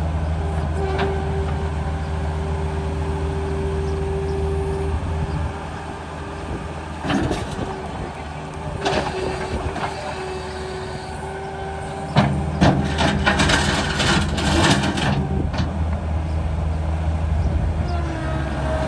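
New Holland L175 skid steer's diesel engine running, dropping lower about five seconds in. A few knocks come a little later, and near the end it runs louder again with a burst of clanks and rattles for about three seconds.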